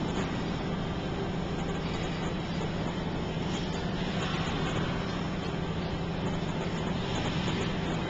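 Steady low hum with a hiss over it: constant background room noise with no distinct events.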